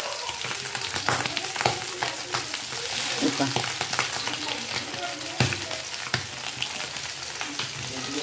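Indian mackerel (bangda) in a semolina, rice-flour and chilli coating, shallow-frying in a little oil in a nonstick pan: a steady sizzle full of small crackles and pops.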